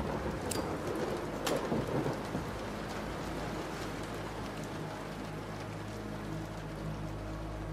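Rain falling steadily with thunder: a sharp crack about a second and a half in, with a rumble that dies back into the rain. A low sustained drone rises under the rain from about five seconds in.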